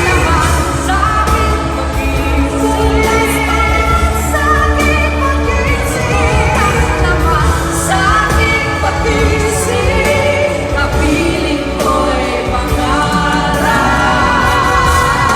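Pop song with singing over band accompaniment: vocalists hold long, wavering melody lines above a steady bass.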